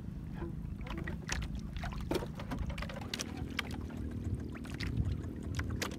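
Longline being hauled by hand into a small outrigger boat: scattered sharp clicks and knocks from the line, hooks and fish against the wooden hull over a steady low rumble of water against the boat.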